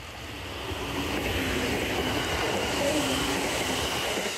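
Four-car Aoimori Railway electric train passing close by, its wheels running on the rails. The sound grows louder as it nears, is loudest about three seconds in, then starts to fade.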